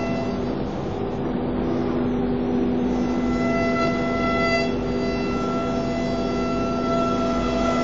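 Automatic tool-change (ATC) CNC wood router running, its high-speed spindle giving a steady whine of several held tones over a rough machine noise as the gantry travels over the sheet.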